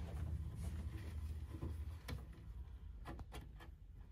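Flat-blade screwdriver working slotted screws out of a cupboard lid's hinges, with small clicks and scrapes about two seconds in and a few more around three seconds, over a low steady hum.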